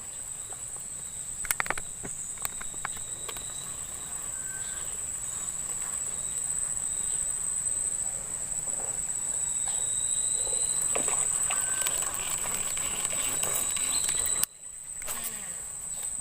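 Insects droning with a steady, high-pitched buzz that grows slowly louder, with a few scattered clicks. The sound cuts out abruptly near the end and the buzz returns a moment later.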